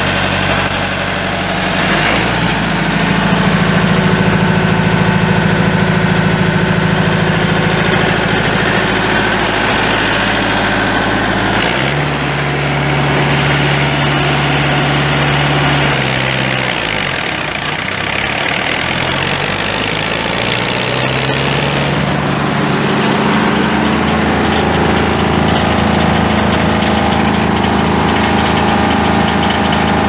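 The wood chipper's Perkins 4.2L diesel engine running steadily. Its speed shifts a couple of times, then sags and climbs back up about two-thirds of the way through.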